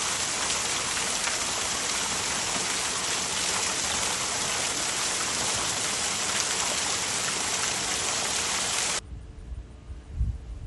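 Steady rush of falling, splashing water, a loud even hiss that cuts off abruptly near the end. After it come only low rumbling and a few soft thumps.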